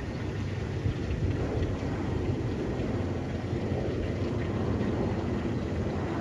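Jet airliner's engines overhead, a steady low rumble.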